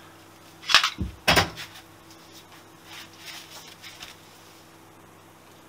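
Two sharp knocks of hand tools handled on a workbench about a second in, with a dull thump between them, followed by quieter clattering and rummaging noises.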